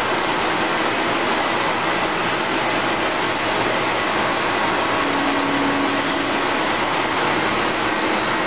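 Sanco SM-3000G CNC double-column machining center running: a loud, steady mechanical hiss and hum with faint steady whines, and a brief low tone for about a second a little past the middle.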